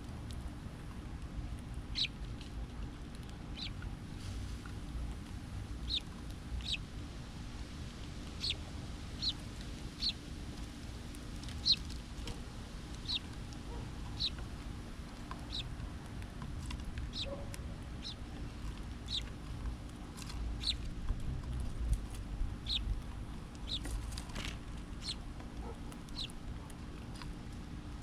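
A small bird at a feeder giving short, sharp, high chip calls, one about every second, irregularly spaced, over a low steady background rumble.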